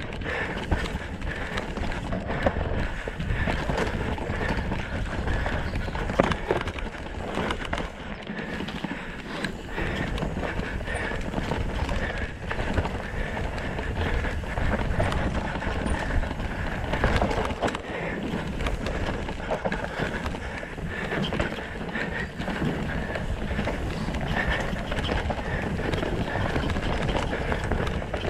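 Mountain bike descending a rough dirt forest trail at race pace: a continuous rattle and rumble of tyres, chain and frame over roots and dirt, with frequent sharp knocks from hits.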